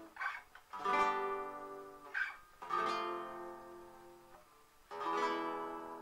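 Nylon-string classical guitar: a barre chord strummed three times, each left to ring and die away, with short scraping noises from the strings between strums.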